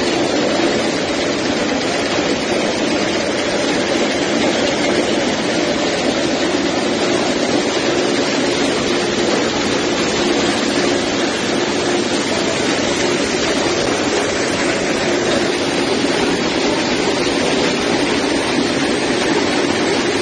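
Trommel scrubber running: a steady, unbroken mechanical noise from the turning steel drum on its support rollers and from the ore and slurry tumbling through it and pouring out of the discharge end into a chute.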